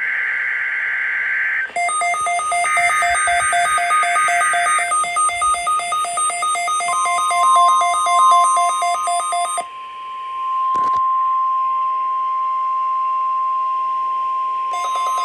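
NOAA Weather Radio weekly test signal on a weather radio receiver. It opens with the warbling, screechy digital data bursts of the alert header, alongside fast, even electronic beeping that stops about ten seconds in and returns near the end. A steady single-pitch warning alarm tone comes in about seven seconds in and holds to the end, with a short click near eleven seconds.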